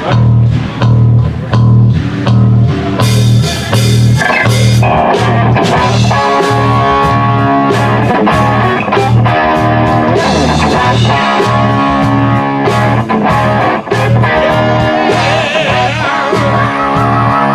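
Rock music with guitar over a steady, evenly pulsing bass beat; the band comes in fuller about three seconds in.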